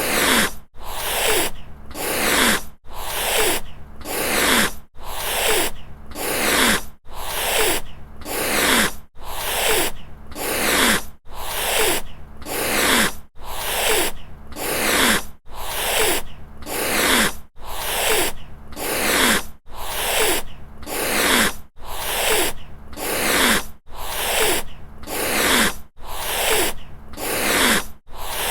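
Cat hissing, over and over: a breathy hiss about a second long, repeating roughly once a second at an even pace.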